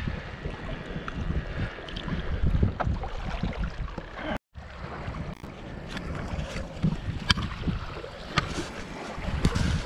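Wind buffeting the microphone with a low rumble, over lapping water and scattered knocks and clicks from handling a capsized RC boat hull as it is hauled out on a fishing line. The sound cuts out for a moment partway through.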